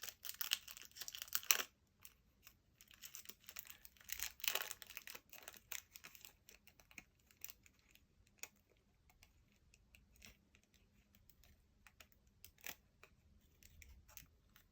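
Plastic wrapping crinkling and small clicks and taps as a replacement iPod nano screen, still in its plastic, is handled and fitted to the device. The rustling is densest in the first second and a half, then gives way to scattered light clicks.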